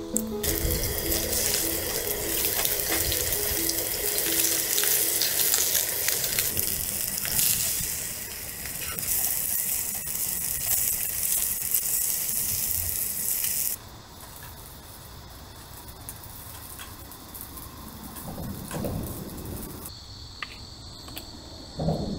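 Steady rush of running water that cuts off abruptly about fourteen seconds in, with light background music in the first few seconds.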